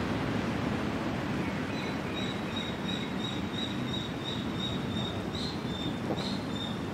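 Steady wash of sea surf and wind. From about two seconds in, a bird joins with a quick run of short, high, even-pitched chirps, about three a second.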